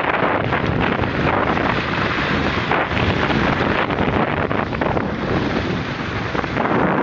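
Loud wind noise buffeting a phone's microphone as it is carried downhill at skiing speed, a steady rushing hiss with uneven gusts.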